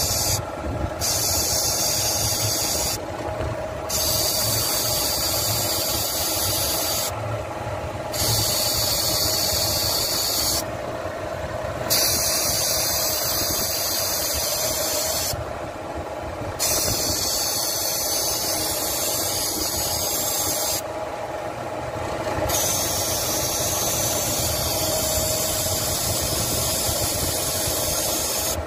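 Old refrigerant hissing out of a car's A/C low-pressure line through the gauge's release valve, with the pressure being bled down before recharging. The hiss cuts out briefly about five times, over the steady hum of the running engine.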